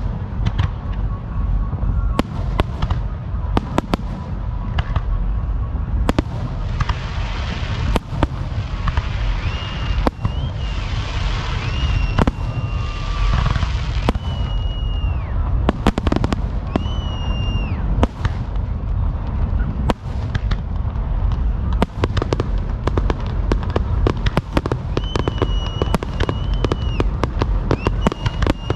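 Fireworks going off in rapid succession: many sharp bangs and crackles over a constant low rumble, with short high whistles now and then.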